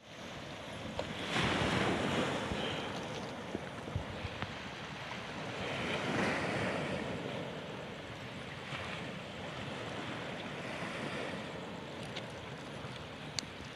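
Rushing wind and surf noise that swells about a second and a half in and again around six seconds, with a few faint clicks.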